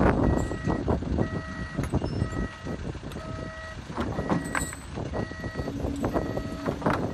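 A heavy machine's backup alarm beeping about once a second over its running diesel engine, with scattered knocks, as a composite ground mat is moved into place.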